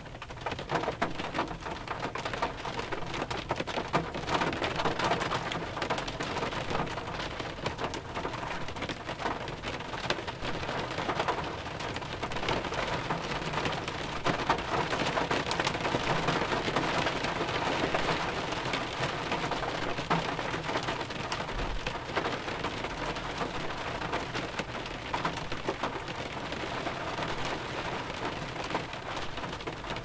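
Light rain falling on a 2001 Pontiac Grand Prix, heard from inside the car: a dense, steady run of small, sharp drop impacts on the car's body.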